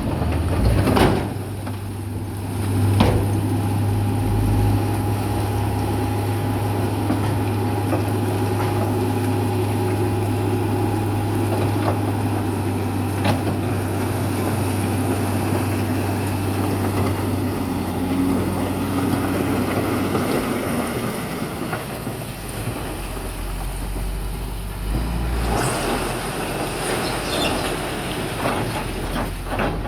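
Heavy diesel earthmoving machinery running, with a steady low engine drone that fades out about two-thirds of the way through and gives way to a deeper rumble, and a few scattered knocks and clanks.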